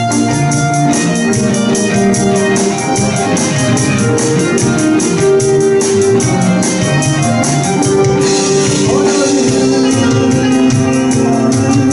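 Live band music: drums keeping a steady beat under guitar, bass and keyboard, with a voice singing.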